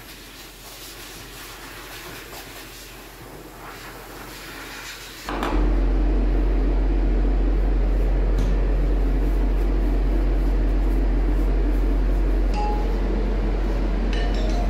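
A pet grooming dryer blower switches on about five seconds in and runs loud and steady.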